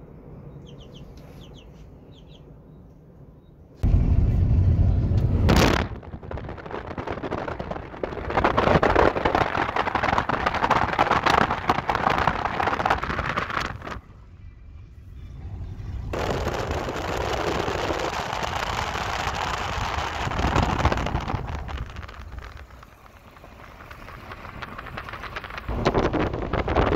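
Faint chick peeps, then about four seconds in a sudden switch to loud, steady noise of a vehicle driving on a gravel road and wind on the microphone. The noise drops away briefly a few times, with a sharp knock near the start.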